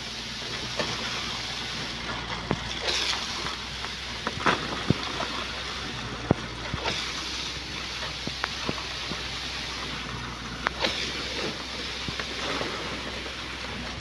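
Concrete pump machine running steadily with a hiss, while hoes and shovels scrape through wet concrete and clink against the rebar mesh in many short, sharp strokes.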